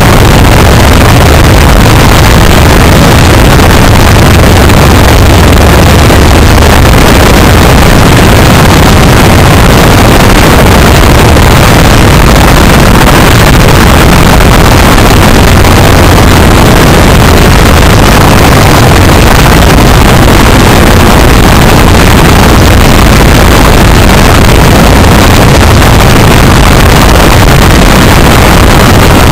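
Legal Eagle ultralight's engine running steadily with its propeller turning, picked up very loud from a camera mounted just beneath the engine.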